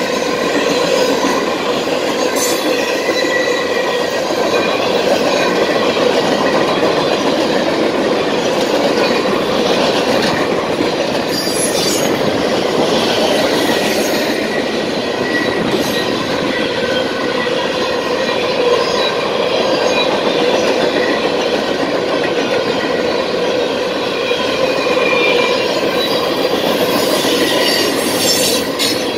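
Cars of a CSX mixed freight (manifest) train rolling steadily past, a continuous rumble of wheels on rail, with a few sharp clicks as wheels cross rail joints.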